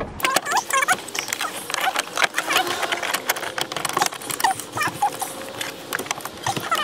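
Handling noise as a metal harness bar is fitted against a car's plastic pillar trim and seatbelt mount: many quick clicks and taps, with short high squeaks among them.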